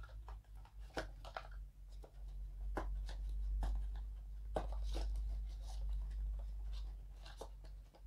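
Handling noise of charging cables and their packaging: scattered light clicks and crinkles at irregular intervals over a low steady rumble.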